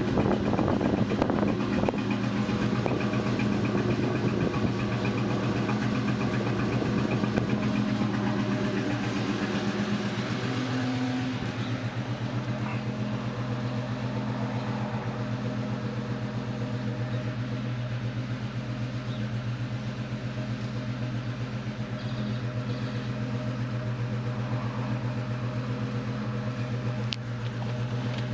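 2002 Ford Mustang GT's 4.6-litre V8 idling roughly with a misfire, which the owner links to a thread insert just installed in cylinder 3. The engine's level eases slightly about ten seconds in, and there is a single sharp click near the end.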